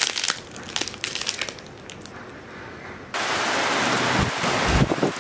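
Plastic protein-bar wrapper crinkling as it is opened, close to the microphone, for about three seconds. Then steady rain starts abruptly and carries on, louder than the wrapper.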